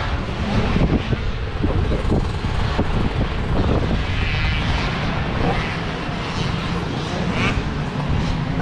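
Two-stroke motocross bikes' engines running steadily, a continuous engine drone.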